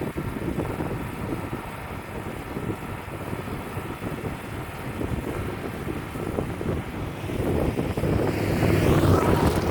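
Wind buffeting the microphone over the steady running of a Wood-Mizer LT35 sawmill, gusting louder about eight seconds in.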